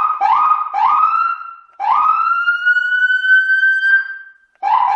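Whelen electronic siren set off from the tractor's horn button: three short rising whoops, then one long wail that climbs slowly for about two seconds. Another short whoop starts near the end.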